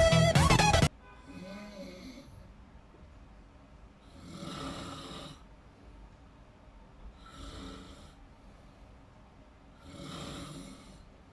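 Loud music cuts off suddenly about a second in. Then a person snores in deep sleep: four snores about three seconds apart, each on an in-breath, the second and fourth the strongest.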